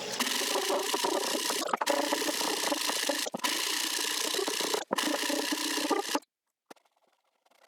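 Power tool working plywood, giving a steady rasping noise with a few very short breaks. It cuts off abruptly about six seconds in.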